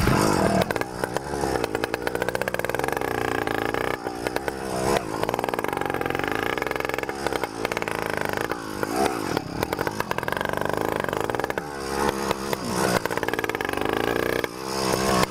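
Small 100cc petrol engine on a motorised mountain bike running loud through a short, cut-down makeshift exhaust pipe. Its pitch rises and falls again and again as the throttle is opened and eased.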